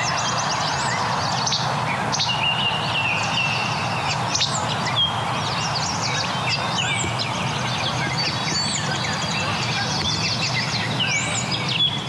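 Least flycatcher singing its short, snappy two-note 'che-bek' over and over, roughly every couple of seconds, with other birds singing in the thicket, over a steady background hiss.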